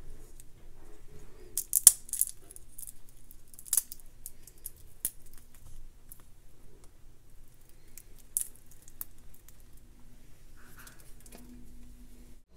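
Scattered small sharp clicks and light taps of walnut pieces being handled and set down on pancakes on a ceramic plate, the loudest cluster about two seconds in.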